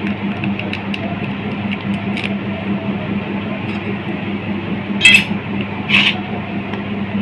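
A jaljeera spice sachet being cut open: a faint crackle about two seconds in, then two short, crisp crackles of the packet about five and six seconds in. A steady low hum runs underneath.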